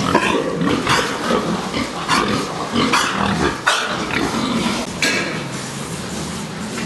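Domestic pigs grunting in a pig house, a busy run of short, irregular grunts that thins out about five seconds in.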